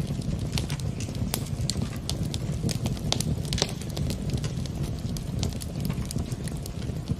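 Wood fire in a fireplace crackling, with frequent irregular pops and snaps over a steady low rumble.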